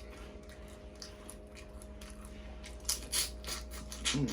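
Close-up eating sounds: a quick run of wet clicks and smacks about three seconds in, over a steady low hum.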